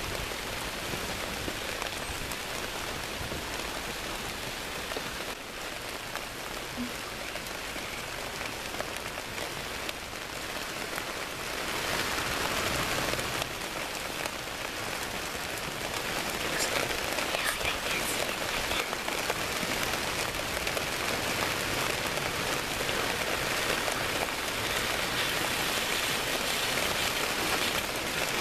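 Steady rain falling, an even hiss that gets louder about twelve seconds in and again a few seconds later.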